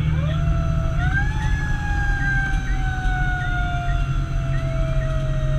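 Fire engine siren on a responding tanker, heard from inside the cab: it winds up quickly near the start, then slowly falls in pitch. A quick chirp repeats about twice a second, over the steady drone of the truck's engine and road noise.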